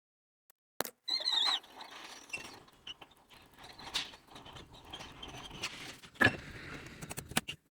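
Small tools and parts being handled at a repair bench: scattered light clicks and taps with scratchy scraping between them. A brief high wavering squeak comes about a second in.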